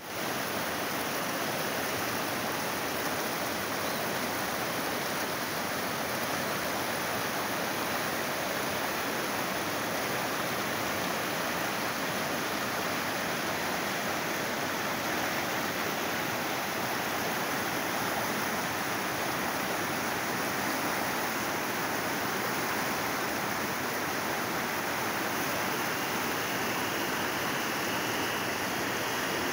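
A river in flood, its muddy water rushing steadily over and around rocks in rapids.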